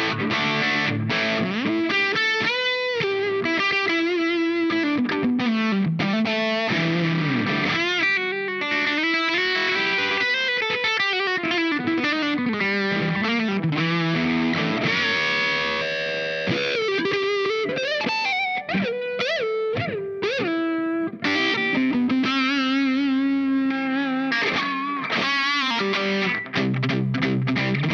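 Larrivee RS2 electric guitar played through a RAT-style distortion pedal (Dazatronyx RAD) at a medium, crunchy gain: continuous lead lines with string bends and vibrato.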